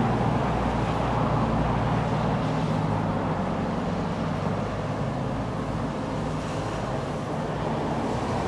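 Steady low background drone under an even, hiss-like wash, with no sudden sounds.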